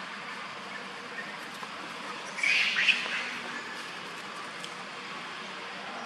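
A short, high-pitched animal squeal about two and a half seconds in, over a steady background hiss.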